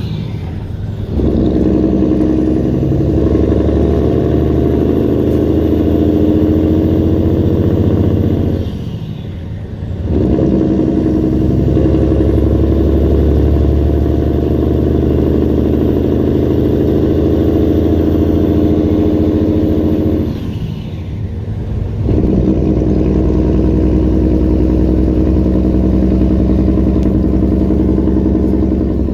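Diesel engine of a loaded 2011 Peterbilt semi-truck heard from inside the cab, pulling and working up through the gears. The engine note and a faint high whine climb steadily, then drop away briefly at each shift, about a second in, about nine seconds in and about twenty-one seconds in.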